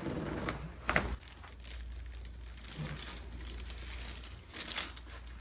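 Crinkling and rustling as the patient and chiropractor shift on the adjusting table, with one sharp knock about a second in, over a steady low hum.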